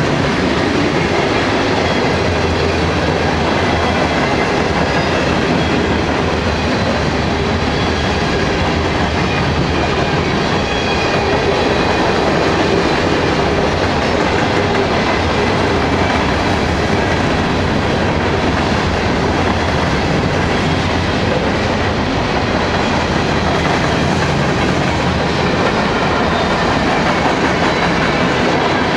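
Norfolk Southern freight cars (hoppers, gondolas and container cars) rolling past close by: a loud, steady rumble and clatter of steel wheels on the rails.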